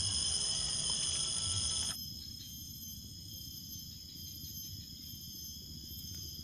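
Steady high-pitched insect drone, several tones held without a break, over a low rumbling of handling noise. About two seconds in, the whole sound drops abruptly quieter.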